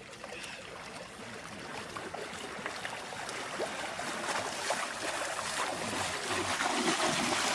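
Water lapping and splashing softly as a dog swims, slowly growing louder.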